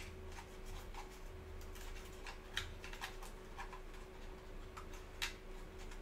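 Irregular light plastic clicks and taps from handling a DJI Mini Pro drone and swinging out its folding arms, with sharper clicks at the start, about two and a half seconds in and about five seconds in. A faint steady hum underneath.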